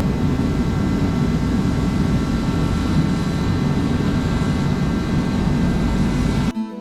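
A loud motor and a heater running together, a steady mechanical drone with a constant whine in it, cutting off abruptly near the end.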